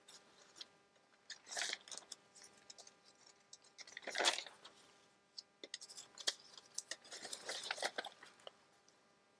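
Sheets of paper (book pages and paper ephemera) rustling and crinkling as they are handled and laid onto stacks, in short scattered rustles, the loudest about four seconds in.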